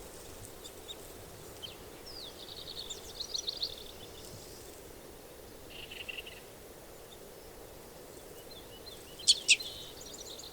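Red crossbill calling: a quick run of short, high chirps about two seconds in, a brief buzzy note around the middle, and two sharp, loud call notes in quick succession near the end, against faint steady background noise.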